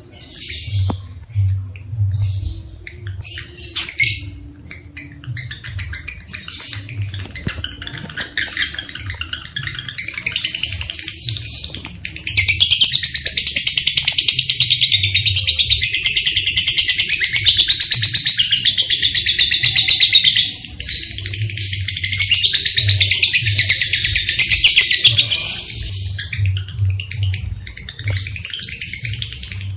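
Lovebirds calling. Scattered shrill chirps give way, about twelve seconds in, to a long, dense, high-pitched chattering trill (the 'ngekek') that runs for several seconds, breaks off briefly and starts again. This excited chatter is the kind played to stir other lovebirds into breeding condition.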